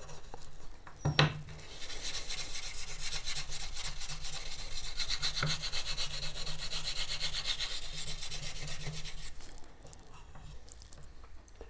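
Rust eraser scrubbed quickly back and forth over a steel knife blade to lift rust and discoloration, in fast even strokes. A single click comes about a second in, and the scrubbing eases off a couple of seconds before the end.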